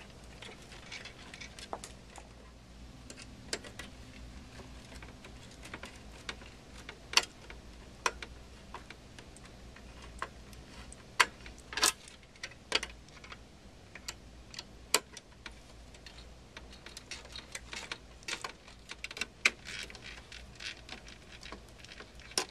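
Scattered, irregular sharp clicks and small knocks of plastic and metal as hands fit a CPU cooler fan into a desktop PC case and handle its clips and cables.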